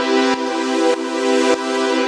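Electronic background music: sustained synthesizer chords with a light tick about every 0.6 seconds and a swelling hiss on top.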